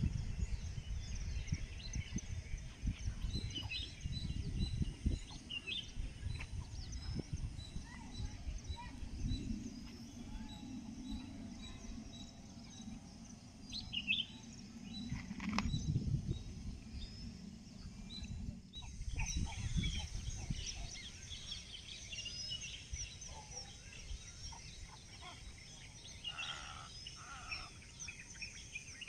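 Several small birds chirping and calling on and off, over irregular low rumbling gusts of wind on the microphone.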